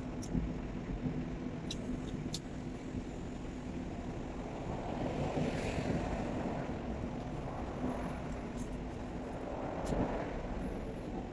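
Steady low rumble of motor-vehicle traffic with a faint constant hum, swelling about halfway through and again near the end. A few light clicks come from eating and from handling the foil-wrapped food.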